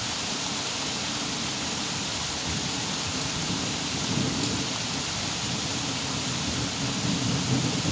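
Steady heavy rain falling, an even hiss, with a low rumble underneath that swells and fades a few times.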